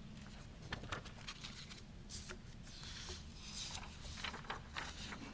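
Faint room tone of a hall with a live audience, with a few soft, brief noises.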